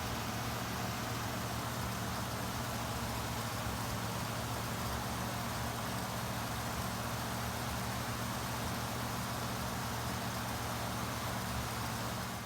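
A vehicle engine running steadily: a constant low hum under an even rushing noise, with no change in speed.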